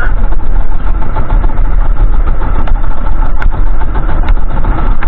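A small fishing boat's engine running steadily and loudly, with a few sharp clicks about halfway through.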